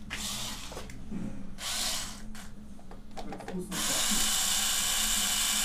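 Power tool whirring in bursts while the oil pan bolts are being taken out: a short burst at the start, another about a second and a half in, then a longer steady run from near four seconds in.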